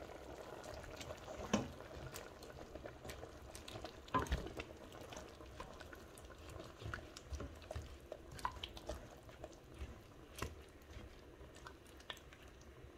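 A spatula stirring grated tomato and onion into beef and cow skin cooking in a metal pot: soft, wet stirring sounds with a few light knocks of the spatula against the pot.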